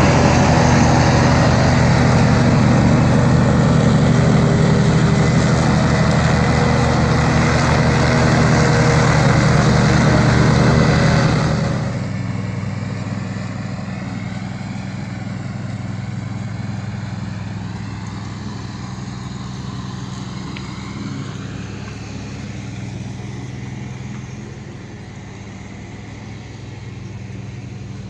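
Stiga Park front-deck ride-on mower's engine running steadily as it mows. It is loud and close at first, then drops suddenly about 12 seconds in to a quieter, more distant steady hum that fades a little further near the end.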